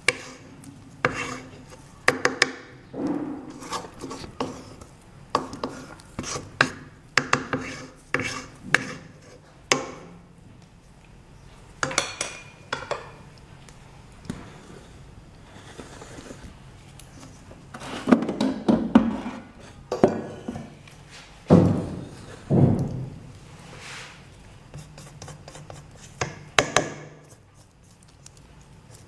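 Spoon and spatula knocking and scraping against a stainless steel mixing bowl as soft semolina-and-flour bread dough is worked, in irregular clicks and scrapes with a louder, busier stretch past the middle.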